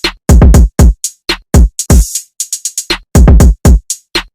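Electronic intro music with a drum-machine beat: loud, booming kick hits that sweep down in pitch, some in quick triple runs, between short, bright, snappy hits.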